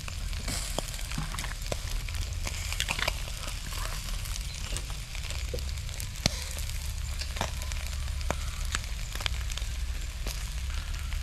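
Frogs and fish grilling over an open fire: a steady sizzle with scattered sharp crackles and pops from the fire.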